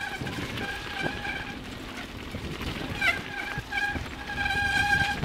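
Bicycle brakes squealing in on-and-off pulls, a steady high whine, the longest pull near the end, over the rumble and knocks of tyres on a loose gravel trail.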